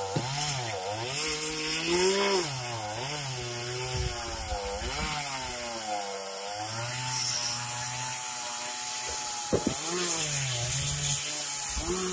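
Gas chainsaw cutting wood, its engine pitch sagging and rising repeatedly as the chain loads up in the cut and frees again.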